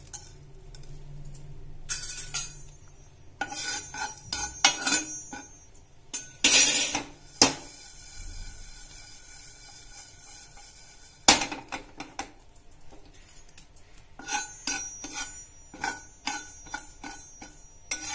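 Metal spatula scraping and tapping against a nonstick pan as fenugreek seeds are stirred while dry-roasting, in irregular clusters of clicks and scrapes. A single sharp knock comes about eleven seconds in, and near the end the taps come quickly one after another.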